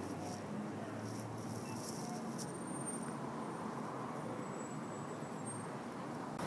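Steady background hum of distant street traffic, with no distinct events standing out.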